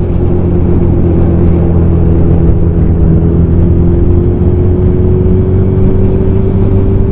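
Motorcycle engine running at a steady cruise with wind rushing over the microphone while riding; the engine note edges slightly higher in the second half.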